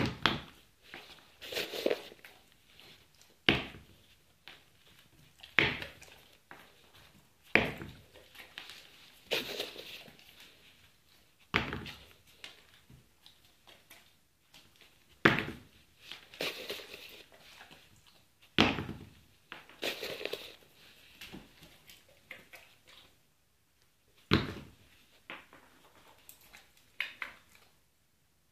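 A sneaker tapped lightly on a ceramic tile floor, one sharp tap every two to four seconds, with softer scuffs and clicks between the taps.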